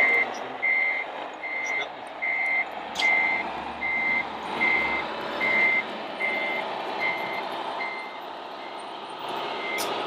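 Reversing beeper of a radio-controlled scale truck's sound module: a single high beep repeating about every three-quarters of a second, growing fainter near the end, over steady background noise with an occasional sharp click.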